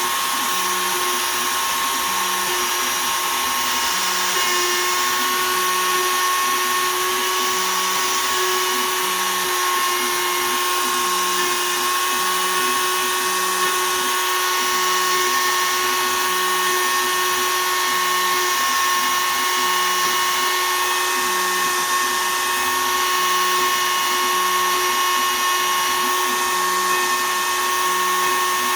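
CNC router spindle running steadily at 20,000 rpm, a constant whine, as a 1/8 in two-flute downcut spiral bit cuts poplar. A lower hum comes and goes at a regular beat as the machine moves through its toolpath.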